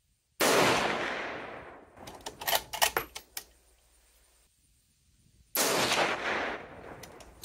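Two rifle shots about five seconds apart, each a sharp crack with a long fading echo, followed by a run of metallic clicks as the rifle's action is cycled.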